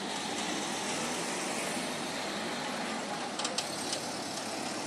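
City street traffic: cars passing close by over a steady wash of traffic and crowd noise, with a few short sharp clicks about three and a half seconds in.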